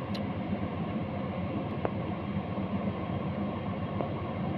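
Steady low rumbling background noise with a faint hum.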